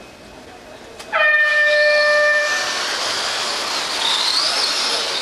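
Race start tone sounds about a second in, a steady pitched beep held for about a second and a half. The pack of stock electric RC off-road trucks launches with it, giving a loud hiss of motors and tyres on the clay with a wavering high whine that runs on.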